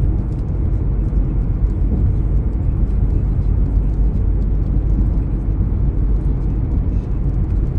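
Car being driven, heard from inside the cabin: a steady low rumble of road and engine noise.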